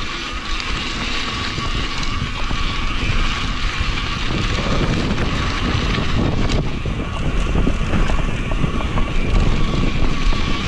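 Mountain bike rolling down a dirt trail: wind buffeting the action camera's microphone over a low tyre rumble, with small knocks and rattles from the bike.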